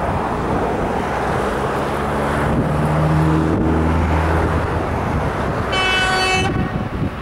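TEP70BS diesel locomotive approaching with a steady rumble; a low horn note sounds for about three seconds, then a short, high whistle blast about six seconds in.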